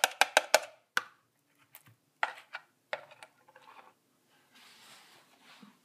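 A metal spoon tapping against a plastic cat food bowl to knock wet food off it: a quick run of about five sharp taps at the start, then a few single taps, and fainter scraping sounds near the end.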